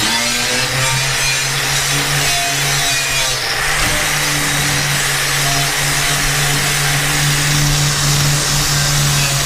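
Electric angle grinder running under load, its disc grinding heavy rust off a quarter-inch steel plate with a steady motor hum and harsh grinding hiss. The tone shifts about three and a half seconds in.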